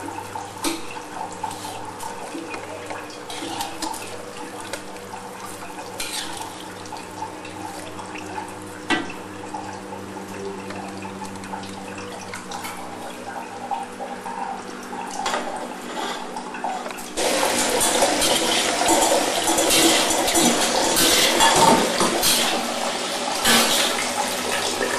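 Stir-frying noodles in a wok: a metal spatula scraping and tapping against the wok, with scattered sharp knocks over a steady hum. About 17 seconds in, the sound jumps to a louder, steady rush of running water.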